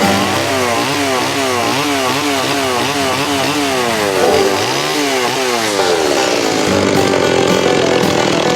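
Chainsaw fitted with a carving bar, carving wood. Its engine revs up and down about twice a second, then holds at a steadier high speed for the last couple of seconds.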